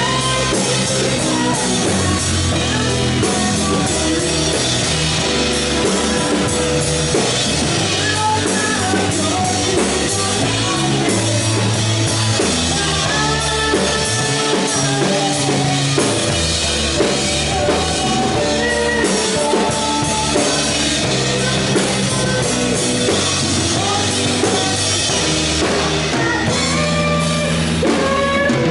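Live band playing rock music, with the drum kit loud and close and a keyboard.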